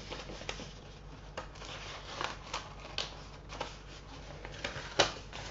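A folded sheet model being handled and shaped into a cone by hand: irregular soft rustles and small clicks, with one sharper click about five seconds in.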